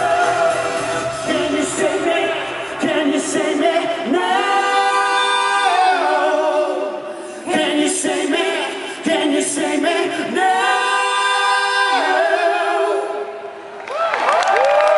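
Live synth-pop performance: a male lead singer and female backing singers sing, and about two seconds in the low backing music drops away, leaving mostly voices. Near the end the crowd starts cheering.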